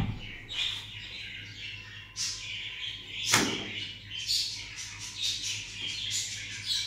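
A roti being handled on a hot tawa over a gas stove: rustling and scraping as it is turned and pressed down with a cloth, with one sharp knock a little past three seconds in.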